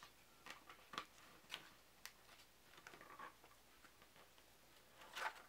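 Faint scattered clicks and light rustling of a thin paper rule booklet being eased out of a black plastic card-game box.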